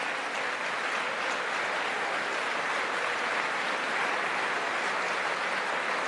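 A large crowd applauding steadily, dense, even clapping.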